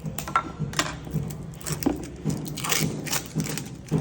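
Plastic packaging of a supplement tub crinkling and clicking as it is handled and opened, with irregular crunches and taps about two to four times a second.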